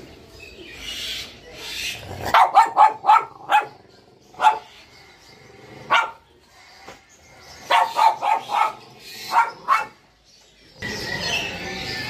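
A dog barking in bursts: a quick run of about five sharp barks, a couple of single barks, then another run of about four and two more. About eleven seconds in, a steady background hiss comes in abruptly.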